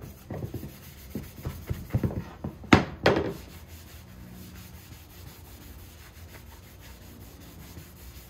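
Paper towel buffing excess tung oil off a wooden mallet head in quick rubbing strokes, fainter and steadier after the first few seconds. Two sharp knocks about three seconds in as the mallet is laid down on the workbench.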